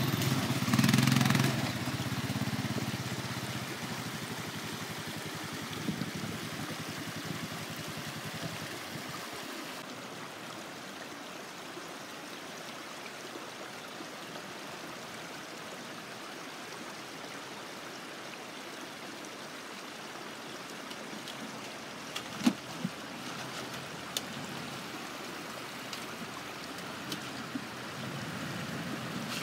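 An ATV engine running at first, fading within a few seconds, then a steady trickle of running water. A few sharp clicks come about three-quarters of the way through.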